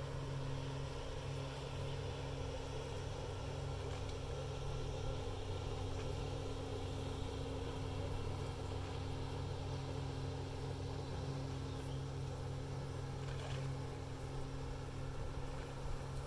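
Honeybees buzzing as they fly in and out of a hive entrance, a steady low drone.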